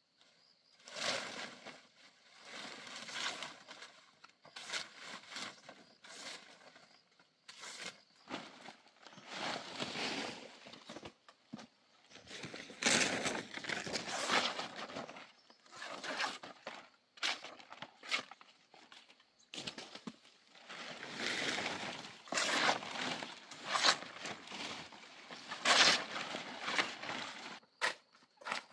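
A machete slashing and hacking through banana plants and brush, with leaves and stalks rustling and crackling as they are cut and handled. There are irregular bursts of rustling and a few sharp chops, several in quick succession about three-quarters of the way through.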